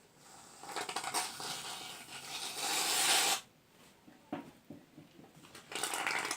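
Bozano shaving foam aerosol can spraying foam: a hissing, sputtering stream that builds and cuts off suddenly about three and a half seconds in, then a second, shorter spurt near the end.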